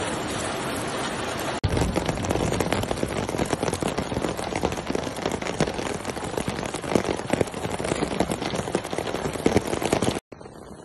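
Heavy rain falling with a steady hiss, then, after an abrupt change about a second and a half in, a louder, dense patter of rain and hailstones with many sharp ticks. Near the end it cuts out for an instant and comes back as quieter rain.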